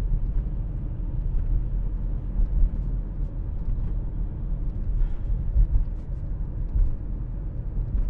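Steady low rumble of a car driving on the road, heard from inside the cabin: tyre and engine noise at cruising speed.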